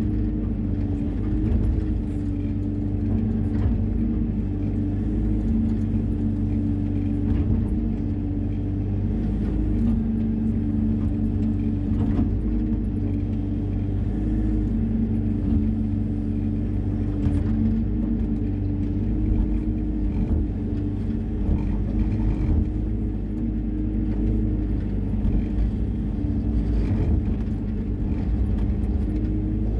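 Diesel engine and hydraulics of a Hyundai 140 wheeled excavator running steadily under working load, a constant low rumble with a steady hum, while the bucket digs and scrapes grass and soil. A few faint knocks break through now and then.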